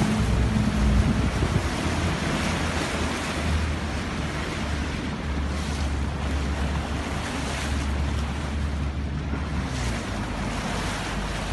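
Wind blowing on the microphone over choppy open sea, with waves washing around a small boat. A steady low rumble underneath fades about ten seconds in.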